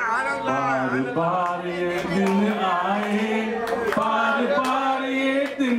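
Voices singing together in long held notes, a man's voice to the fore.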